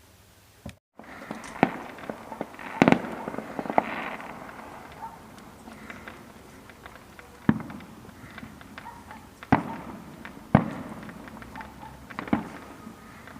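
Fireworks going off: a string of sharp bangs, about six loud ones spread a second or more apart, with smaller cracks and crackling between them.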